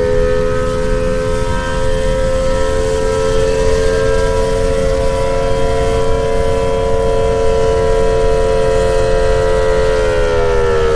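Civil defense siren sounding a chord of two close tones, its pitch rising slightly about four seconds in, holding steady, then starting to wind down near the end, over a steady low noise.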